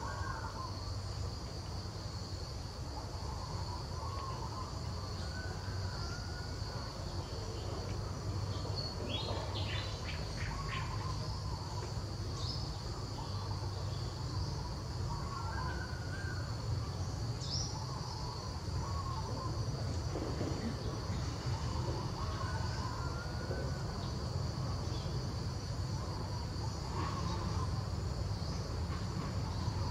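Steady high-pitched drone of insects, with short chirping calls every few seconds over a low background rumble.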